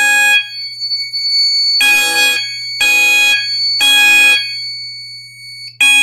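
Fire alarm horn sounding in the temporal-three evacuation pattern: three half-second blasts about a second apart, a pause of about a second and a half, then the next round starting. This is the panel's alarm signal after a smoke detector has gone into alarm. A thin steady high tone can be heard in the pauses.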